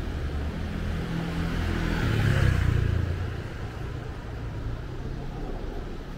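A motor vehicle passing by on the street: engine rumble and road noise rise to their loudest about two and a half seconds in, then fade away.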